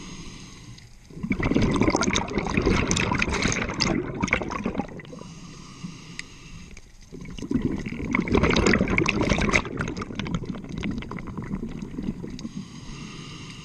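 Scuba diver breathing through a regulator underwater: two long exhalations of bubbles, starting about a second in and about seven seconds in, separated by quieter inhalations.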